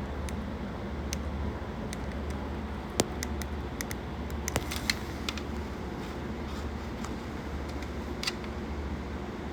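Airbrush air compressor running with a steady low hum, with a few sharp clicks and taps over it, the loudest about three seconds in.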